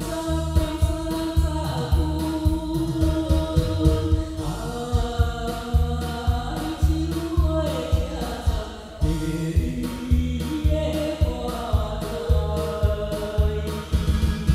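A song with held, melodic singing over a steady beat with deep bass pulses.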